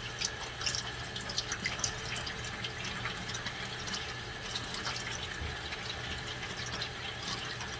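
Cold tap water running steadily into a sink, with many small irregular ticks and splashes.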